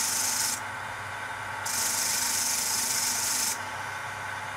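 Steel wire wheel brush spinning on a bench polishing motor with a steady hum, and a bright scratchy hiss each time a knife blade is pressed against the wire: briefly at the start and again for about two seconds in the middle. The wire brushing refreshes the satin finish across the blade's flat.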